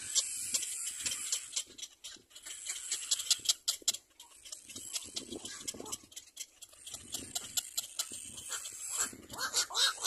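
Little black cormorant nestlings in the nest giving short, repeated begging calls, louder and more frequent near the end, over rapid sharp clicking.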